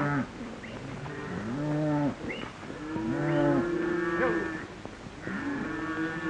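A herd of cattle bawling as it is driven through a corral: a run of long, overlapping moos, one after another.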